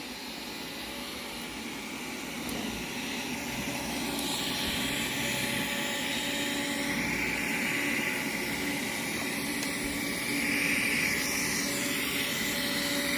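Robot vacuum cleaners running with a steady motor whir and hiss, getting louder about four seconds in and again near ten seconds.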